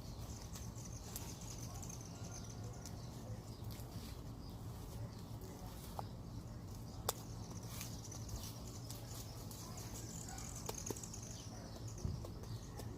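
Quiet room tone: a low steady hum with a few faint, isolated clicks, one of them sharper about seven seconds in.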